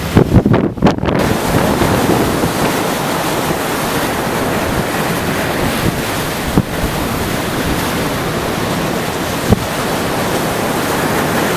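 Storm-driven surf and strong wind in a loud, steady roar, with gusts buffeting the microphone in the first second and a few single thumps later on.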